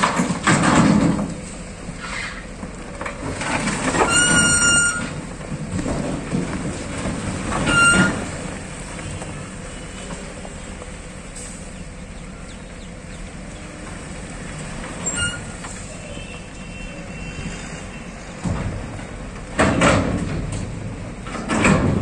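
Tipper truck's engine running as its raised body dumps a load of soil and rubble, the earth sliding out with louder rushes near the start and near the end. Short high-pitched tones sound about four seconds in and again around eight seconds.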